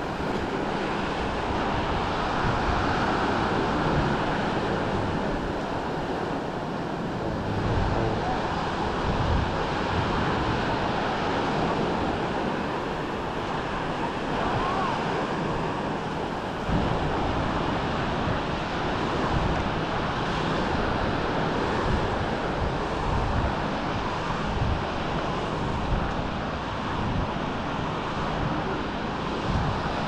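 Small Mediterranean waves washing onto a sandy beach, a steady surf, with wind buffeting the microphone in uneven low gusts.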